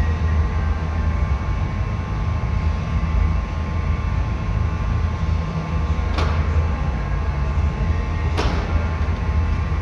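Paint spray booth's ventilation fans running with a steady low rumble and a faint steady whine. Two short sharp sounds come about six and eight and a half seconds in.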